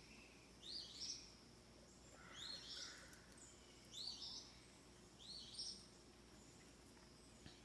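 A songbird calling, four short high notes spaced about a second and a half apart, faint against quiet outdoor background.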